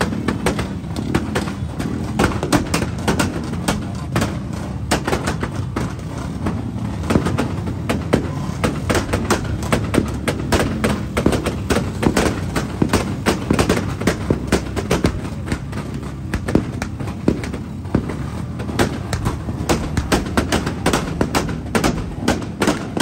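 A long string of firecrackers going off, a dense run of sharp cracks and bangs that does not let up.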